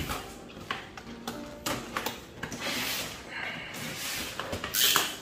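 A cardboard box being opened by hand: a box cutter slitting the packing tape, with scrapes, rustles and light knocks as the box is turned over. Two longer scraping sounds stand out, one about halfway through and a louder one near the end.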